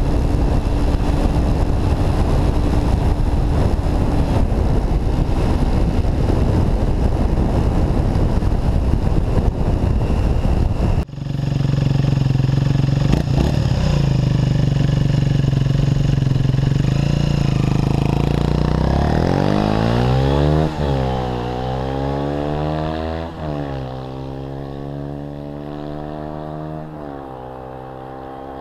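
MZ SM 125 single-cylinder four-stroke motorcycle engine with its stock exhaust. For about the first eleven seconds it runs under a loud rush of wind at speed. After an abrupt break it holds steady, then accelerates through the gears, its pitch climbing and dropping at three upshifts while the sound grows fainter.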